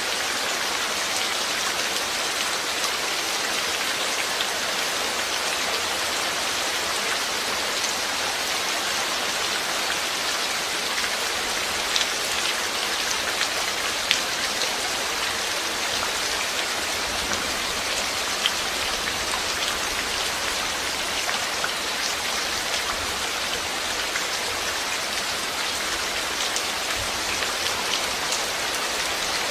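Steady rain falling, an even hiss with scattered louder drops hitting a surface.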